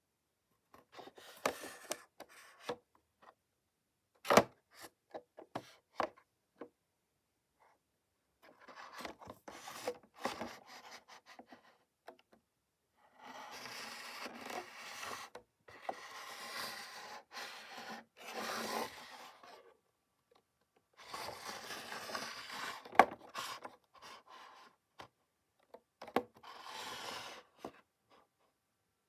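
Clear plastic blister pack and cardboard backing card of a Hot Wheels monster truck toy being handled and turned over: irregular bursts of crinkling and scraping, with a couple of sharp clicks about four seconds in and again past twenty seconds.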